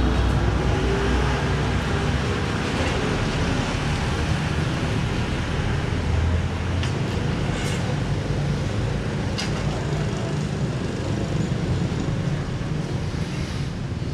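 Steady rumbling noise of passing road traffic, with a few faint clicks over it.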